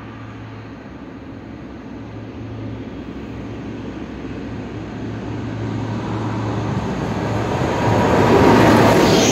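Two DB class 218 diesel-hydraulic locomotives pulling a car-carrying shuttle train, their engines running with a steady low hum that grows steadily louder as they approach, loudest as they pass close by near the end.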